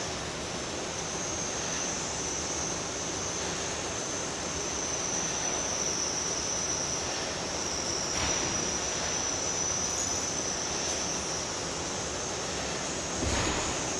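Small electric motors of a found-object sound installation running: a steady noisy drone with a high, slightly wavering whine. A brief louder swell about eight seconds in and a short bump near the end.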